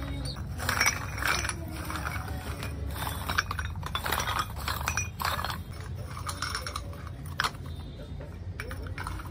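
Fired terracotta tea cups clinking and scraping against one another as they are scooped by hand out of a bed of ash and stacked. The clinks come thick and fast for the first five seconds or so, then only a few single clinks.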